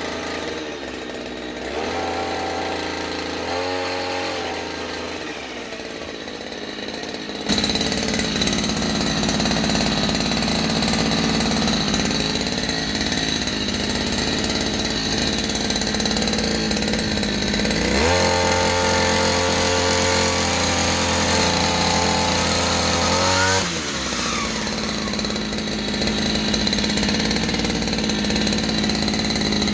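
Ryu RBC 2T two-stroke brush cutter engine running: idling with two short throttle blips, then held at high revs from about a quarter of the way in. It climbs higher for several seconds past the middle, then eases back to a lower speed near the end.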